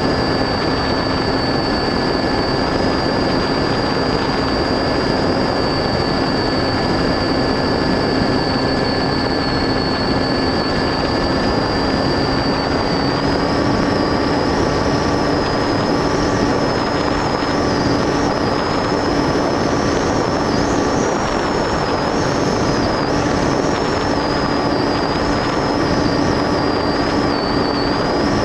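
Motor and propeller of an FPV model aircraft running steadily, heard from its onboard camera under a rush of wind noise. A high whine sits over a lower hum; about halfway through the pitch shifts slightly and the whine starts to waver.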